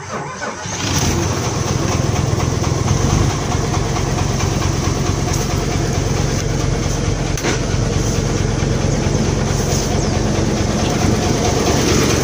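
Isuzu 10PD1 dump truck's diesel engine being started: it catches within the first second and then runs steadily at idle.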